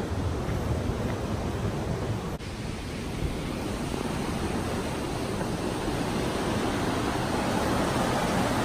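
Steady rush of a mountain stream tumbling over rocks and small falls in a narrow gorge, growing a little louder near the end.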